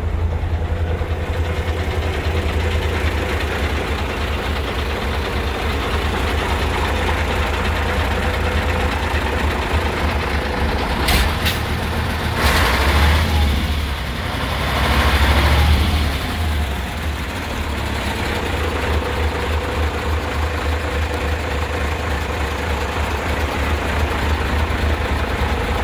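Mercedes-Benz 2628 K 6x6 tipper's V8 diesel engine idling steadily. About eleven seconds in come two sharp clicks, followed by two brief louder surges of noise.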